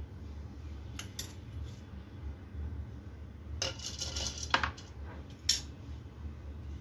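Metal strainer tapping and clinking against the rim of a plastic mixer-grinder jar as soaked lentils and rice are tipped in. There are two light taps about a second in, a short rattle around three and a half seconds, and two louder knocks near the end.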